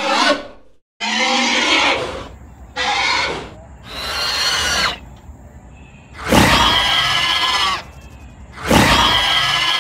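A string of dinosaur roar sound effects: a brief call at the start, then five loud roars, each about a second long, with short gaps between them.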